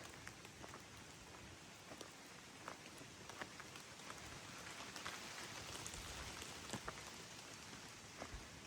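Light rain falling steadily, with scattered drops tapping close by.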